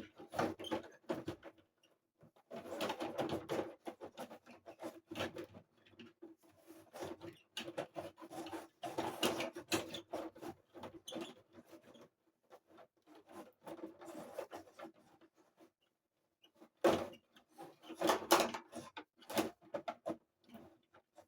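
Plastic clattering and clacking of a 1990 Remco TMNT Subterranean Sewer Hockey tabletop game in play, as its players are slid along their tracks and spun to knock the puck about. It comes in irregular bursts with short pauses, loudest near the end.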